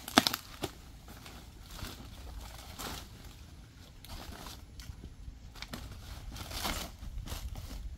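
Fresh banana leaves rustling and crinkling in short bursts as they are handled and folded over a pit, with a sharp knock just after the start.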